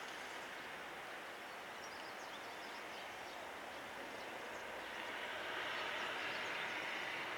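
JR Freight EF210 'Momotaro' electric freight train approaching: a steady rushing rail noise that grows louder from about five seconds in.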